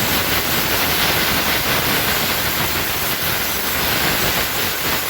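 Compressed air hissing steadily from an air compressor nozzle, blowing dust and debris out of a propane tankless water heater.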